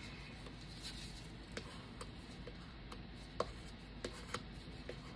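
Faint, irregular clicks and taps of a wooden stir stick against a paper cup as black pigment paste is mixed into resin.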